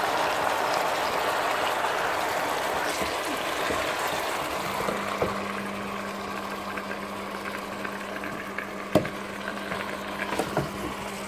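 Raw chicken pieces sizzling as they fry in hot butter with onions and garlic in a steel pot, stirred with a wooden spoon, with a few sharp knocks of the spoon against the pot. The sizzle slowly fades, and a steady low hum starts about four seconds in.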